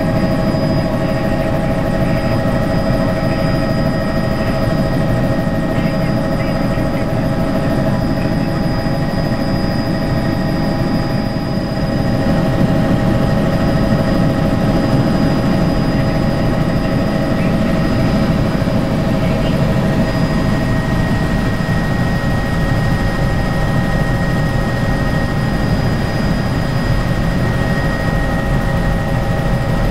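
Helicopter in flight heard from inside the cabin: a steady drone of engine and rotor with a dense low rumble and several constant whining tones above it, slightly louder from about twelve seconds in.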